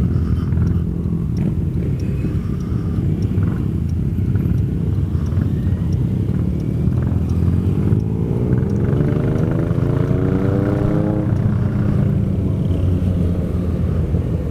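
Motorcycle engines running on the move, with a steady low rumble of wind and road noise. About six seconds in, one engine accelerates, its pitch climbing steadily for about five seconds before dropping away suddenly.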